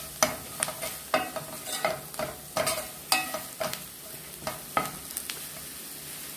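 A spoon stirring a frying onion masala in a pan, knocking and scraping against the pan about twice a second over the steady sizzle of hot oil, as just-added coriander powder is fried into the spices.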